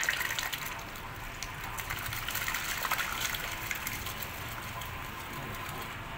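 Soaked rice and its water poured from a plastic bowl into a large pot of boiling water: a splashing gush over a bubbling boil, strongest at the start and again about three seconds in.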